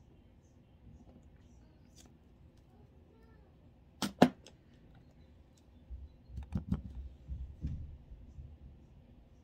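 Two sharp clicks in quick succession about four seconds in, then a run of duller knocks and bumps a couple of seconds later: small makeup items being handled and set down on a tabletop.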